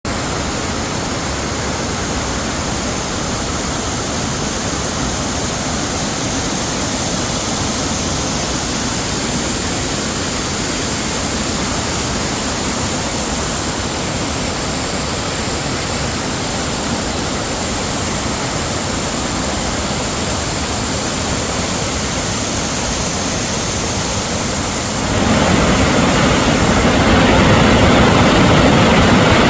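Waterfall, a steady rush of falling water that gets louder about 25 seconds in.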